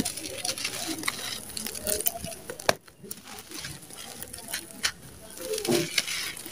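Lumps of dry sand-cement crushed and crumbled in bare hands: gritty crunching and crackling, with loose sand pouring down between the fingers. One lump gives a sharp snap about two and a half seconds in.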